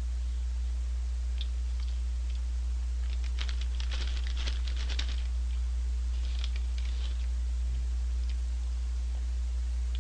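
Paper fries bag crinkling and rustling in clusters of crackly clicks about three to five seconds in and again around six and a half seconds, over a steady low hum.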